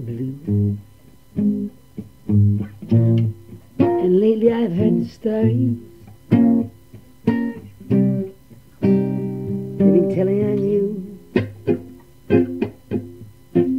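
Acoustic guitar strummed in chords from an old home cassette recording, with a man's voice singing in places.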